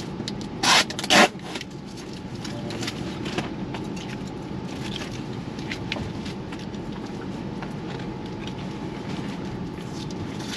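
Steady low rumble of a train carriage interior, with two loud rustling scrapes about a second in and light scattered clicks and taps of plastic cutlery and foil meal trays as people eat.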